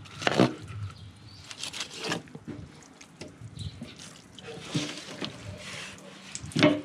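Wet slaps and squelches of a large longfin tuna carcass being handled and cut on a stainless-steel sink, a few sudden handling noises with the loudest just after the start and near the end.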